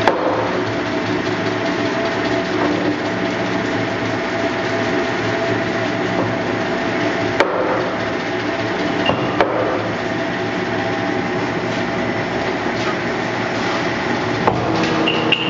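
Betts-Bridgeford big-bore lathe running under power, its geared headstock and drive giving a steady mechanical hum with a few steady tones. Two sharp clicks come near the middle, and another near the end, after which the tone changes.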